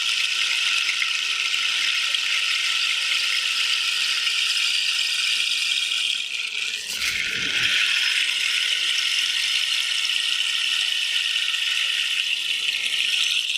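Bamboo rainstick filled with seeds such as green gram, tumbling down past bamboo pins inside the tube: a steady, dense rain-like rattling hiss. About halfway through it dips briefly with a low knock, then the trickle carries on.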